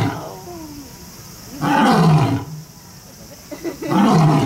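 Male lion roaring: a series of short, deep roars about two seconds apart, each falling in pitch. The tail of one is heard at the start, a full one about two seconds in, and another near the end.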